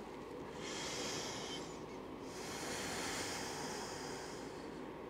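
A person's slow, faint breathing: two long breaths, one after the other.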